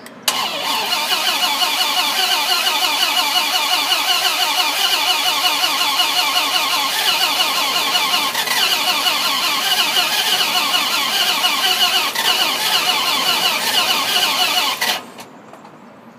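Starter motor cranking the Dodge Ram SRT-10's 8.3-litre V10 for about fifteen seconds. It stops suddenly and the engine never catches, because the truck won't start.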